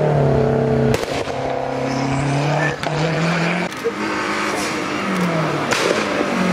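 Lancia Delta Integrale rally car's turbocharged four-cylinder engine running hard on a hillclimb, its note rising and dropping as it accelerates and changes gear. The sound jumps abruptly a few times.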